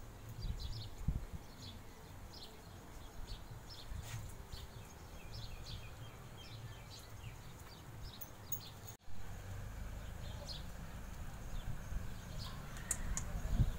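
Birds chirping in short, repeated calls over a steady low rumble, with a brief dropout about nine seconds in.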